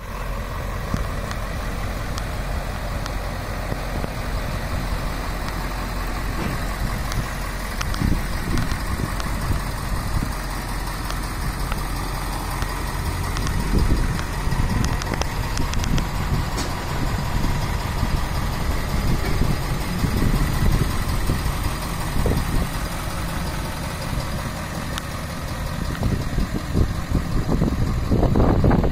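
Ford F-550 dump truck's engine idling steadily, with gusts of wind rumbling on the microphone at times, strongest near the end.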